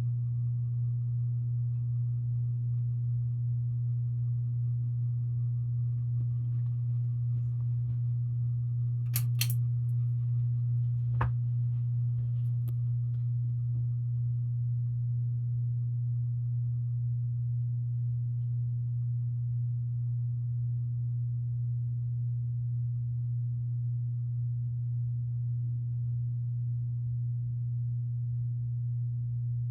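Hampton Bay Littleton 42-inch ceiling fan running with a steady low motor hum. A few sharp clicks come about nine and eleven seconds in.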